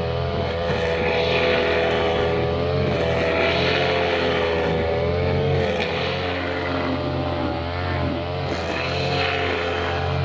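Two-stroke brushcutter engine running at high revs, its pitch wavering up and down as it works through grass.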